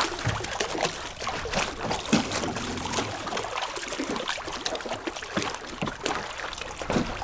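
Water lapping against the hull of a bass boat, an uneven run of small splashes and light slaps.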